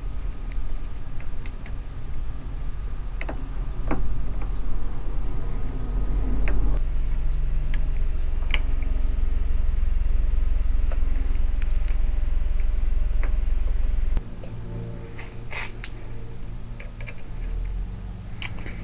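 Scattered light metal clicks of a pick working the wafers of a third-gen Camaro trunk lock cylinder. Under them runs a low steady rumble that gets louder about six seconds in and drops back about fourteen seconds in.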